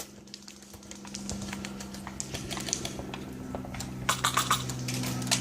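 Airsoft guns firing: scattered sharp clicks and short rattling bursts, with a run of shots about four seconds in, over a steady low hum.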